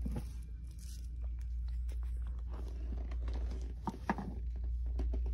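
Shop background with a steady low hum, light footsteps and small knocks from the phone being handled, and a brief faint voice about four seconds in.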